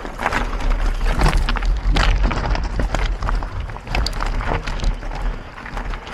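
Mountain bike being ridden over rough ground: a steady wind rumble on the microphone with many irregular clicks and rattles of the bike over the terrain.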